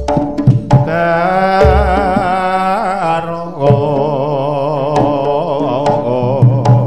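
Jaranan gamelan music: a melody held in two long wavering phrases over the ensemble, with drum strokes near the start and the end.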